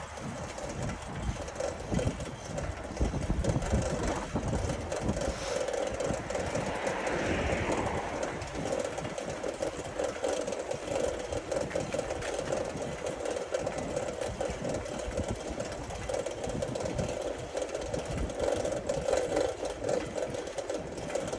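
Riding noise from a bicycle: a steady hum with wind buffeting the microphone in gusts.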